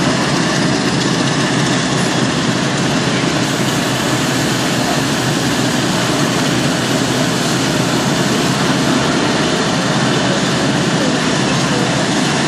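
Fire trucks' engines running steadily, a loud continuous rumble and hiss, with people's voices mixed in.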